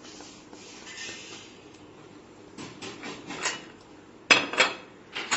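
A spoon knocking and clinking against a dish a few times while spice powder is added, with faint rustling first and the two sharpest knocks about four seconds in.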